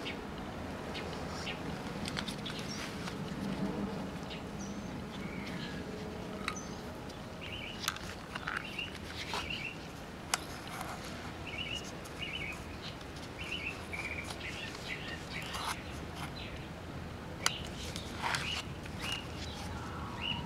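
Small birds chirping again and again in the background, mixed with a few sharp clicks and knocks as the plastic radio case and its strapped-on lantern battery are turned over in gloved hands.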